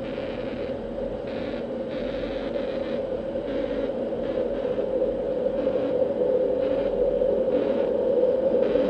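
Aster live-steam Gauge 1 model of a Union Pacific Challenger and its train running on the track, a steady hum that grows louder as the train approaches, with faint intermittent hissy pulses.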